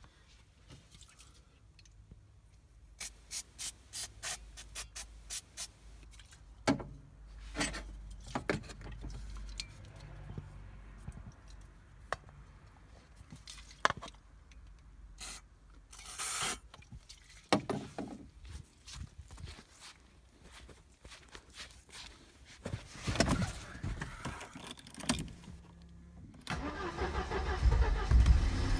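Mercedes-Benz W124 230E's 2.3-litre four-cylinder petrol engine being started from cold, hard-starting. A stretch of cranking, clicks and knocks ends when the engine catches near the end and runs, growing louder.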